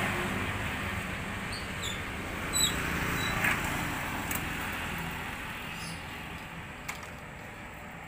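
Motor scooter engines on the road close by, a steady low running sound that slowly fades away, with a few faint high chirps about two to three seconds in.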